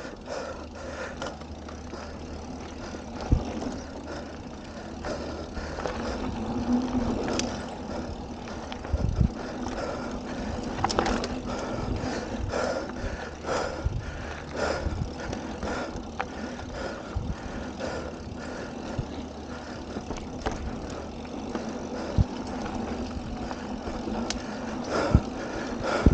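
Mountain bike rolling fast down a dirt trail: steady tyre and rolling noise with frequent short knocks and rattles from the bike over bumps.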